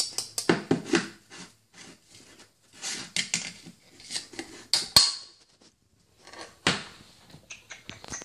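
Irregular clinks and knocks of dishes and cutlery being handled, with a few short scrapes and one sharp clink about five seconds in.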